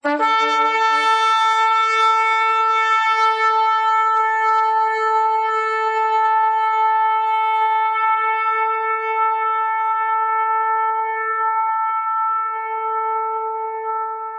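Shofar blown in one long held blast, opening on a brief lower pitch before settling onto a steady, slightly wavering note.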